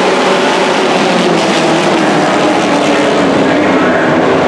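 A pack of dirt-track stock race trucks running hard together just after the green flag: a loud, steady blend of many engines at racing speed.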